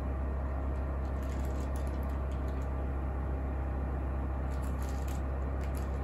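Denbig portable air conditioner running steadily on its low setting, fan and compressor giving a constant hum with a strong low drone. A plastic bag held in its outflow rustles faintly about four and a half to five seconds in.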